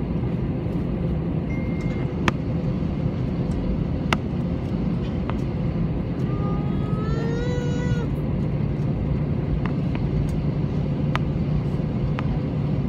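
Airbus A321 cabin noise during the rollout after landing: a steady rumble and hum from the engines and the landing gear rolling on the concrete, with a few sharp clicks. A short wavering higher-pitched tone rises and falls about seven seconds in.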